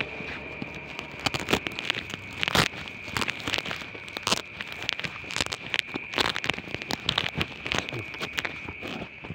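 Irregular clicks and scuffs of footsteps on paving, over a steady high-pitched drone of night insects.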